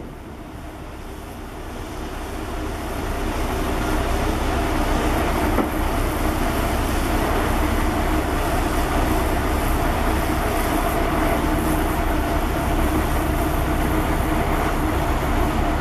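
Diesel engine of a mobile crane truck, rising over the first few seconds and then running steadily at high revs, with a constant mechanical hum, while it powers the crane lifting an overturned lorry.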